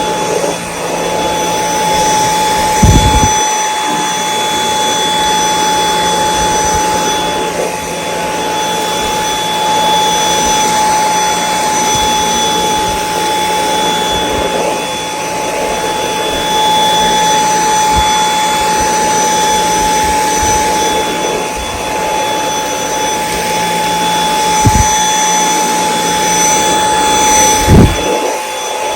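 Dyson V8 Extra cordless vacuum cleaner running steadily with a high motor whine. A few short low bumps come about three seconds in and twice near the end.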